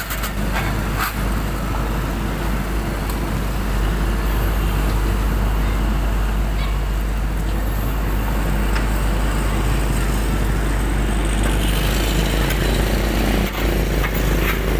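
Dump truck engine running steadily with a constant deep rumble, a few short clicks over it.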